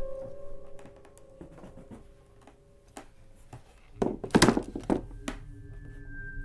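A flat box handled and set down on a tiled floor: scattered light knocks, then a cluster of louder thuds about four seconds in, in a small room. A faint held music tone sits underneath.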